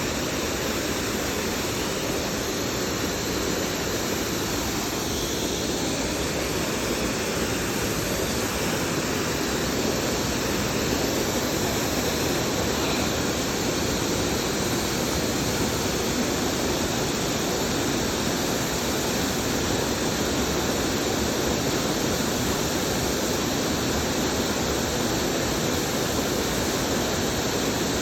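Waterfall pouring steadily, a constant, even rush of falling water.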